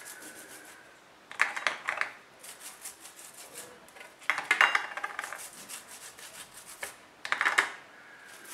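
A squeezed lemon half rubbed back and forth over a roasted corn cob, spreading softened butter over the kernels: quick, rhythmic rubbing strokes. The strokes get louder in three bouts, about a second and a half in, around the middle, and about seven seconds in.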